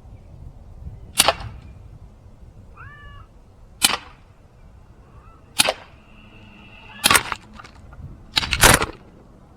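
Umarex Glock 19 CO2 BB pistol firing about five sharp shots, roughly one every one to two seconds; the last comes as a quick double and is the loudest. A cat meows briefly between the first two shots.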